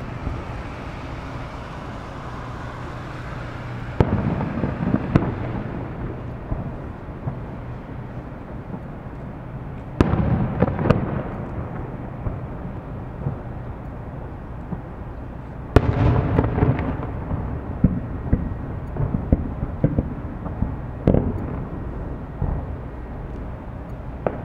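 Aerial firework shells bursting: three main bangs several seconds apart, each trailing off in a rolling rumble, the later two followed by a spell of crackling, with scattered smaller pops near the end.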